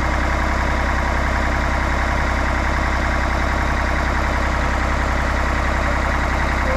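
Engine running steadily at a constant speed, an even low drone that does not change.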